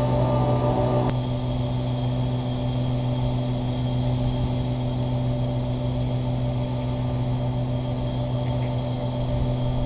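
EMD GP15-1 diesel switcher locomotive's 12-cylinder 645 engine running in the background, a steady drone whose tone shifts slightly about a second in.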